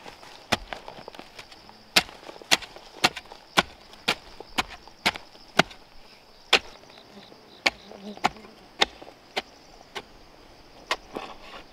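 Repeated sharp chopping blows of a hand tool, about two a second at first and then more spaced out. A steady high insect buzz runs behind them, with pulsing insect chirps joining in the second half.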